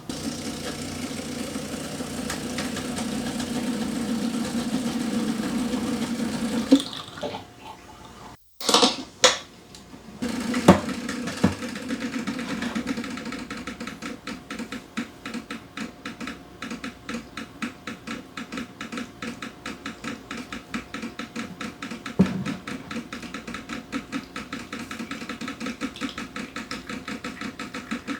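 Decent espresso machine pulling a shot: its pump runs with a fast, even pulsing. Before that comes a steady hum for several seconds, then a few sharp knocks.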